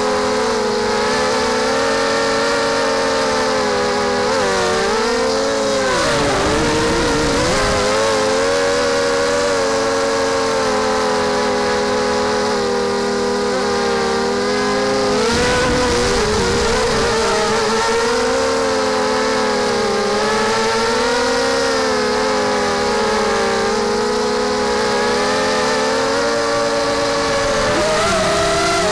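Brushless motors with 5-inch propellers on a Blackout Mini H racing quadcopter, buzzing with a steady whine whose pitch rises and falls with the throttle. The pitch drops sharply several times as the throttle is chopped and then comes back up.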